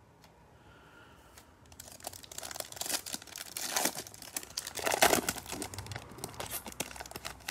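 A Bowman Chrome baseball card pack wrapper torn open and crinkled in gloved hands, starting about two seconds in, with a few louder rips around the middle.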